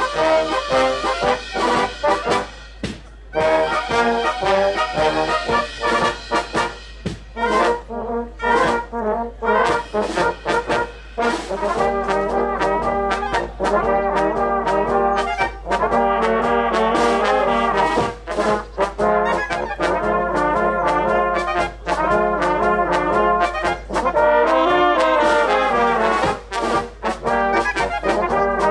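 Instrumental brass band music, with pitched notes moving in rhythm and short breaks between phrases.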